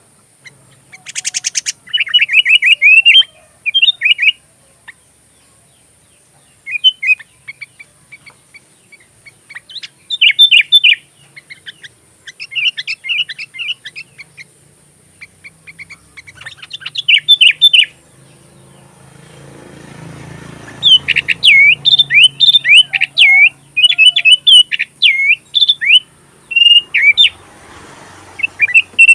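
Sooty-headed bulbul (kutilang) singing: short phrases of quick, chirpy notes separated by pauses, coming in a faster, almost continuous run in the last third.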